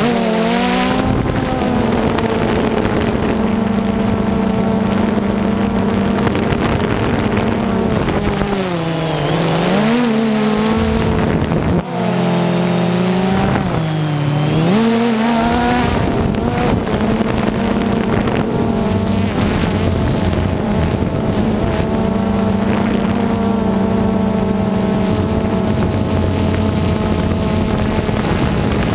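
Drone's electric motors and propellers humming steadily, the pitch dipping and swooping back up a few times about a third to halfway through as the motor speeds change.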